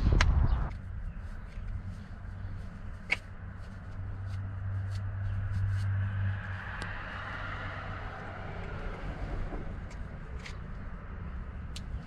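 A short loud clatter right at the start, then the low steady hum of a vehicle that swells a little and fades, with a few faint clicks.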